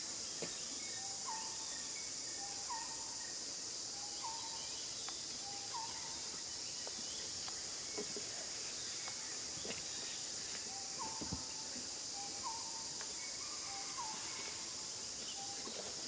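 Jungle ambience: a steady, high-pitched drone of insects, with a bird repeating a short two-note call, a low note stepping up to a higher one, about every second and a half. A few faint clicks are heard now and then.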